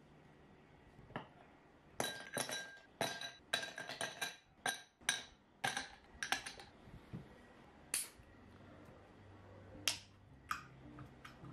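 Ice cubes dropped into a can-shaped drinking glass, about a dozen sharp ringing clinks in quick succession. Near the end, a single sharp click as a drink can's pull tab is cracked open.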